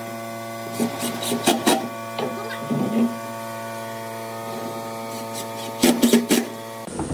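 Makita 18V cordless impact driver driving screws into wood in several short bursts, over a steady hum made of several even tones.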